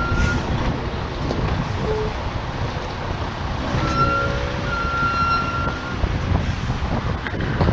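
Heavy truck hauling a boat on a multi-axle low-bed trailer, moving slowly: a steady low engine rumble with road noise. A short high squeal comes about four seconds in, and a longer one follows just after.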